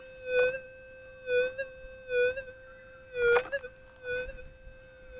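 White's SPP metal detector's steady threshold hum, broken about once a second by a brief warble, sometimes with a crackle. This recurring hiccup is an unwanted noise that stays even with the gain on factory preset and the ground balance set.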